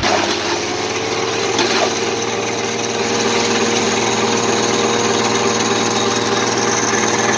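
Tractor-PTO-driven silage chaff cutter running steadily and chopping green maize stalks as they are fed in, over the steady running of the Fiat 480 tractor that drives it.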